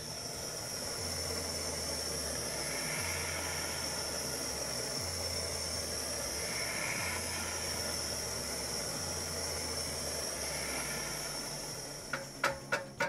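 Handheld gas torch burning with a steady hiss, heating a rear brake rotor that corrosion has bound to the hub. About a second before the end, a quick run of sharp knocks begins, the rubber mallet striking the rotor to free it.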